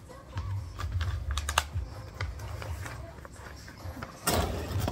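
Packaging being handled by hand: scattered crinkles and clicks of plastic packing wrap, then a louder rustle of paper about four seconds in as a sheet of paper is pulled out.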